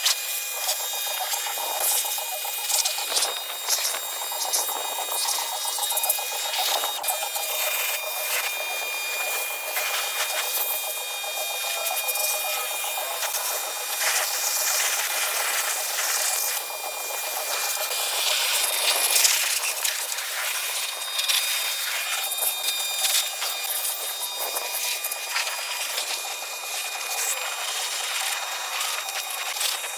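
Kärcher K2 electric pressure washer running, a steady motor whine with the hiss of its water jet.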